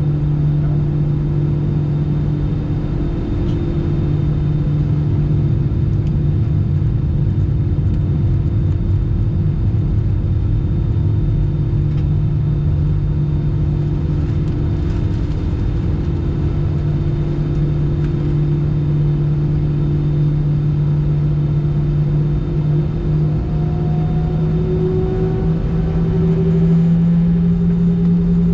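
Airbus A319 cabin sound on the ground: a steady jet-engine hum over a low rumble. Near the end the hum rises in pitch and gets louder as the engines spool up.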